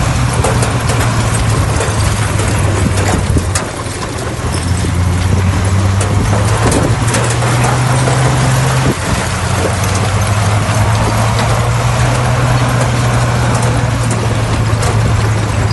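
Bulldozer's diesel engine running steadily under work, its low note shifting in pitch twice, over a dense rattling noise of the machine at work.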